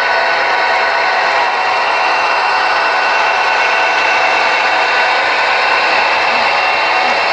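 HO scale model diesel locomotives running past under power: a loud, steady whir of their motors and gearing with the wheels rolling on the track.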